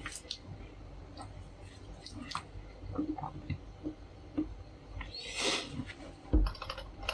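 Handling noise: scattered small clicks and taps, a brief rustle about five seconds in and a thump near the end, over a steady low hum.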